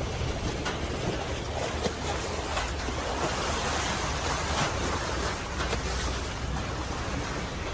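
A boat under way: water rushing and splashing along the hull and wind on the microphone, over a steady low engine rumble.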